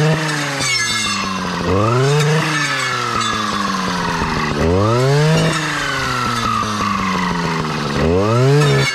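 Stihl two-stroke clearing saw running, revved up sharply to full throttle three times, each burst under a second, with the engine speed sliding back down in between.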